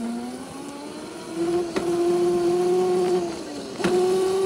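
Electric motor of a kids' mini moped-style scooter whining steadily while riding, its pitch stepping up about a second in as it gathers speed, dropping briefly near the end and then climbing back.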